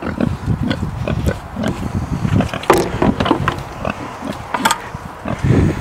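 Pigs grunting repeatedly in short, irregular low grunts, with a couple of sharp knocks, about halfway and again near the end.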